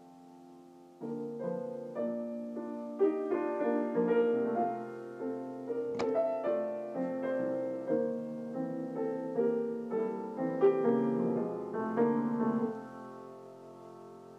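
Piano playing a slow, chord-based piece: a held chord fading, then notes struck from about a second in with one sharp accent mid-passage, and sustained notes dying away near the end.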